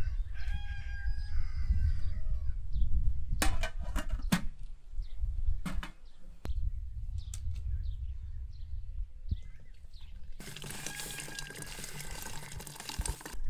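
Farmyard ambience: small birds chirping and fowl calling over a low rumble, with a few sharp knocks partway through. A dense rush of noise lasts about three seconds near the end.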